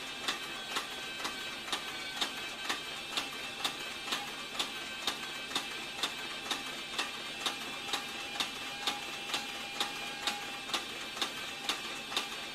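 Hightext CB4500 heavy-duty triple-feed leather sewing machine stitching through saddle leather at a slow, even pace: a sharp click with each needle stroke, about two a second, over a steady high hum.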